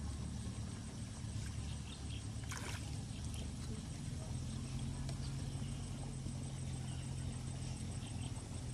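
Quiet outdoor ambience: a steady low hum with faint high chirps, and one brief sharp noise about two and a half seconds in.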